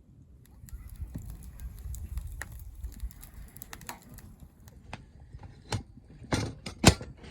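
Handling noises: a run of small clicks, knocks and rustling, then a few sharper knocks near the end.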